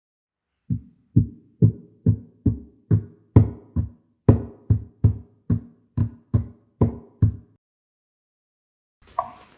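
A steady run of about sixteen dull thumps, a little over two a second and evenly spaced, that stops about two seconds before the end.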